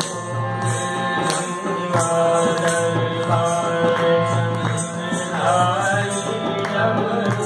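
Devotional music: a sung melody over a steady held tone, with a regular beat running under it.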